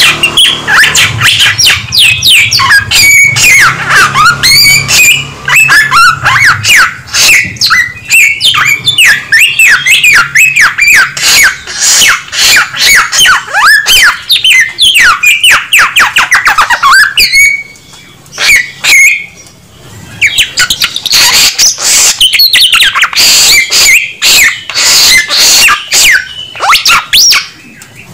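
A samyong songbird singing loudly in a rapid, continuous run of varied chirps, sweeping whistles and harsh notes, with two brief pauses a little past halfway.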